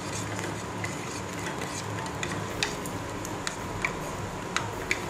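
A spoon stirring ragi porridge in a pot on the stove, knocking against the pot now and then in irregular light clicks over a steady background hum.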